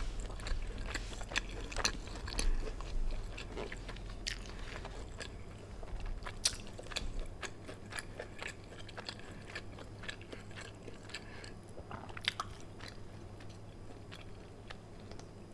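Quiet, irregular chewing: soft mouth clicks and smacks of a person eating close to the microphone, with a small cluster of louder clicks about twelve seconds in, over a steady low hum.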